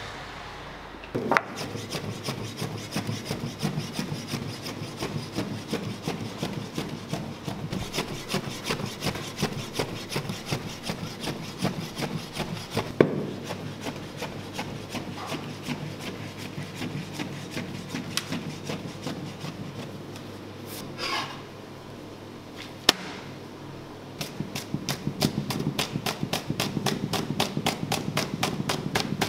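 Knife chopping meat on a wooden board: fast, steady strokes at several a second with a scraping edge, and a few louder single knocks.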